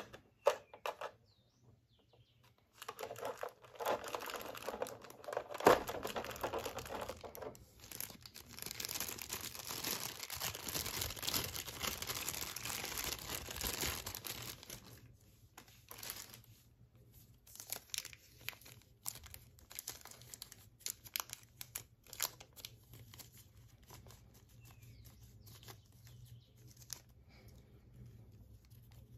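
Thin plastic wrapping and a clear blister tray crinkling as a small figure is unwrapped by hand. The crinkling is dense for about ten seconds, then thins to scattered rustles and small clicks.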